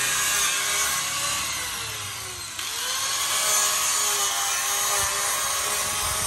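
Electric angle grinder cutting a fibreglass body-kit side skirt: a steady high whine over a dense grinding hiss. About two and a half seconds in, the motor's pitch sags under load and then recovers.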